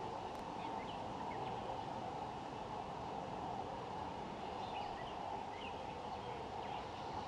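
Steady outdoor background noise with faint, scattered short bird chirps.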